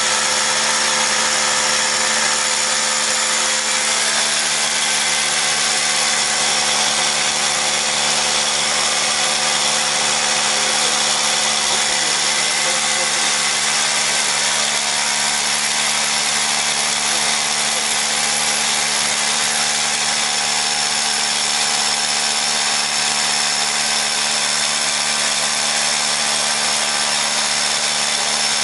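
Electric SDS rotary hammer drilling down into a concrete block with a long masonry bit, its motor and hammer action running steadily without a break.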